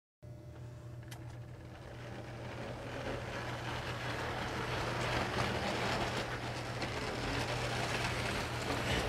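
An American Flyer toy steam locomotive and its cars running along the track: a steady rumbling clatter of wheels over a constant low hum. It starts just after the beginning and grows louder over the first few seconds as the train comes closer.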